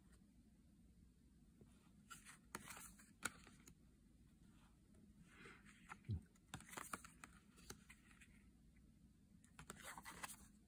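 Faint clicks and slides of thick laminated tarot cards being moved and laid down one at a time, coming in a few short clusters.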